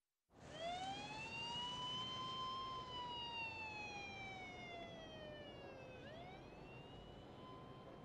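Emergency vehicle siren wailing: the pitch rises over about two seconds and falls slowly, then climbs again quickly about six seconds in and holds, growing a little fainter.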